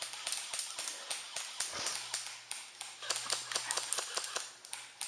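Airsoft gunfire: irregular sharp clicks and snaps, several a second, some louder than others.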